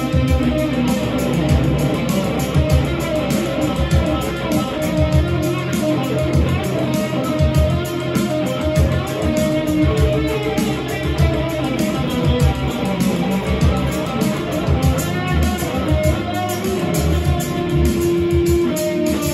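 Red Stratocaster-style electric guitar improvising, played continuously over a steady beat.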